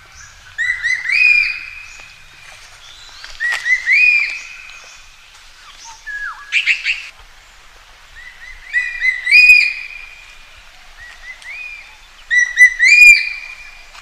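A magpie calling: five short phrases of a few ringing whistled notes, one about every two and a half seconds, the middle phrase harsher.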